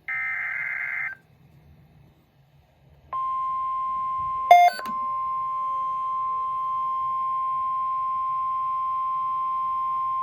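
NOAA Weather Radio alert: about a second of warbling electronic data burst (a SAME header), a pause of about two seconds, then the steady single-pitch Weather Alert tone (1050 Hz) starting about three seconds in and holding. A brief, louder jumble of tones cuts in about four and a half seconds in.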